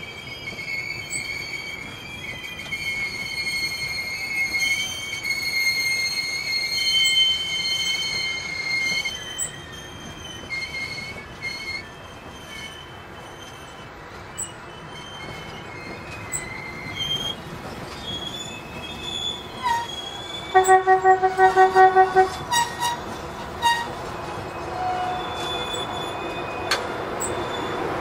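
Passenger train coaches rolling slowly, their wheels squealing in high shrill tones that come and go. About two-thirds in, a loud tone pulses rapidly for about two seconds, and near the end a rumble of wheels grows louder.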